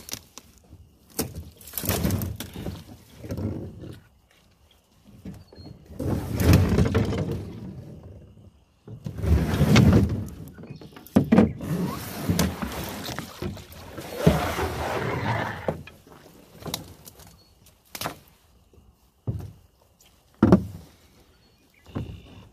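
Paddling a kevlar canoe: irregular swishing strokes through the water, each a second or two long, with a few sharp knocks in between.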